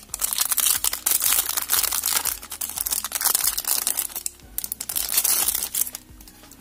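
Clear plastic packaging bag crinkling and rustling as a plastic box of nail sequins is slid out of it. The crackling dies down near the end.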